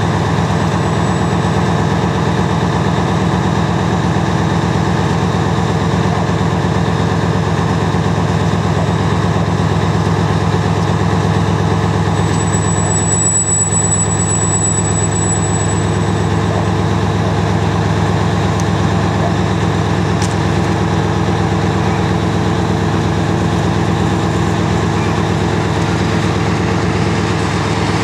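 Lxd2 narrow-gauge diesel-hydraulic locomotive's engine running steadily under heavy load as it struggles on wet rails to pull four empty standard-gauge wagons on transporters.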